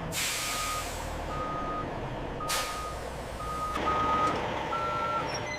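Truck reversing alarm beeping about once a second over a low engine rumble, with two short bursts of air hiss, one at the start and one about halfway through.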